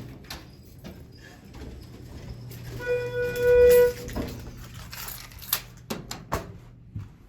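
A single steady tone, held about a second, amid scattered clicks and rustling.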